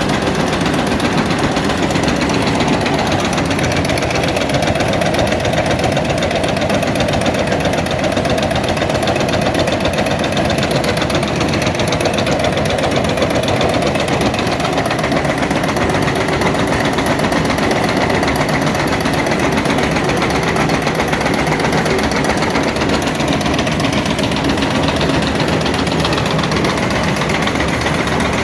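Tobacco leaf shredding machine running steadily with a rapid, even mechanical clatter.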